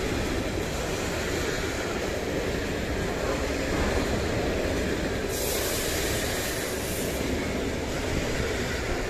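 Freight wagons of an intermodal train, pocket wagons carrying lorry semi-trailers, rolling past close by with a steady rumble of wheels on the rails. A higher hiss rises over it for about two seconds in the middle.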